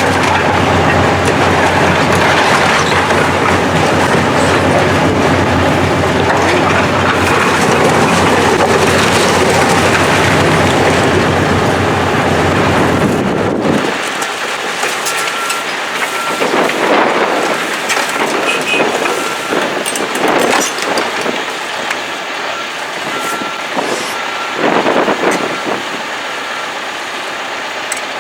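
Heavy demolition machinery running with a deep rumble while debris clatters and grinds. About halfway the rumble drops away, leaving scattered clatter and a short high beep repeating evenly.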